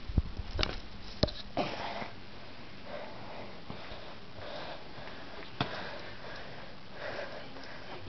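Soft breathy puffs close to the microphone, recurring about every second and a half, with a few sharp knocks near the start as the handheld camera is moved about.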